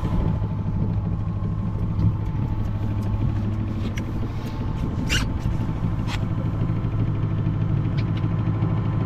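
Sailboat's inboard engine running smoothly under way, a steady low drone. A few short clicks about four to six seconds in.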